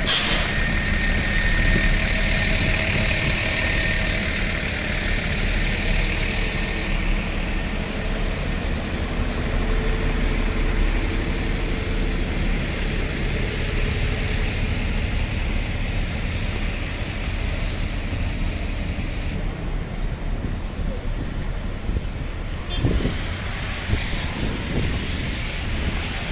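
Diesel city buses idling and running nearby, a steady low rumble. A hiss of air, as from a bus's air brakes, rides over it for the first several seconds.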